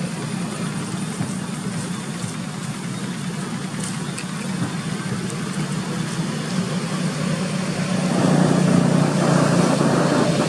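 A steady low engine hum, like a vehicle idling, growing louder about eight seconds in.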